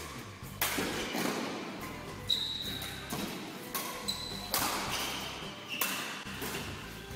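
Feather shuttlecock smacked back and forth by racquets in a badminton doubles rally, several sharp hits echoing in the hall, with a few short high squeaks of shoes on the court.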